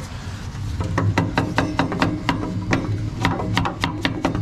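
Irregular clicks and knocks, several a second, as a large adjustable wrench is worked back and forth on a steel bracket to bend it out for clearance, over a low steady hum.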